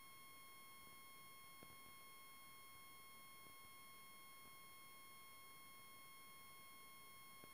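Near silence with a faint, steady high tone and fainter overtones above it, unchanging throughout. A faint tick comes about a second and a half in.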